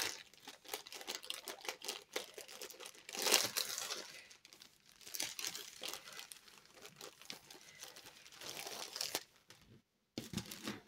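Thin plastic bag crinkling and rustling as a rolled diamond-painting canvas is slid out of it and handled, in a dense run of crackles, loudest about three seconds in, then going quiet near the end.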